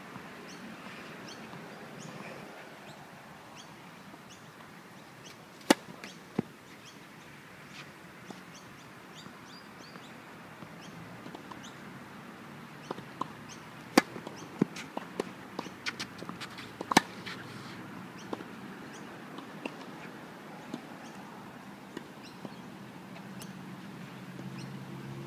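Tennis rally: a ball struck by rackets with sharp pops, two hits under a second apart about six seconds in, then a run of hits and lighter ball bounces in the middle, the loudest near the middle. Faint bird chirps over a steady outdoor background.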